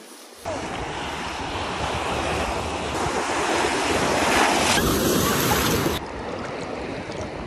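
Ocean surf breaking and churning close around the phone held in the water, with wind buffeting the microphone. The sound changes abruptly twice as the clips cut, and is quieter after about six seconds.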